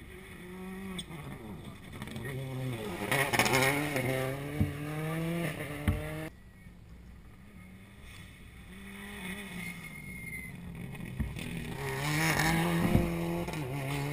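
Two rally cars on a tarmac special stage approach and pass at speed, their engines revving hard and rising in pitch through gear changes, with a few sharp cracks. The first pass cuts off abruptly about six seconds in, and the second car grows loud near the end.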